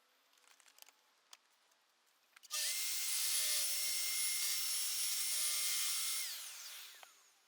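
Festool plunge-cut track saw starting up, running with a steady high whine for about four seconds, then spinning down with a falling whine after the trigger is released.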